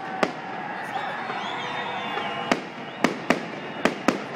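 Aerial fireworks bursting overhead: six sharp bangs, one just after the start and five in quick succession in the second half, over a steady background hiss.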